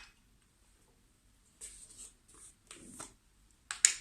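Short scratching and rustling handling sounds on a tabletop as food and utensils are worked with, three brief spells a little past halfway, then two sharp clicks near the end.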